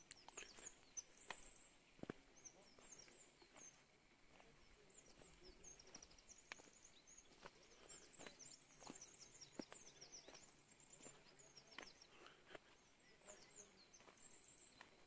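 Faint songbird chirping: quick runs of short, high, downward-sweeping notes, with a few scattered soft clicks.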